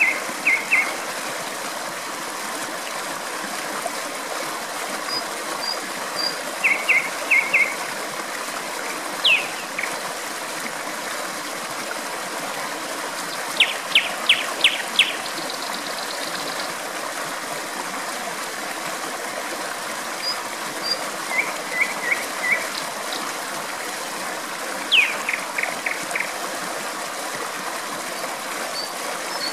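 Flowing water rushing steadily, with a nightingale singing short phrases every few seconds: quick runs of repeated notes and a couple of downward-sliding whistles.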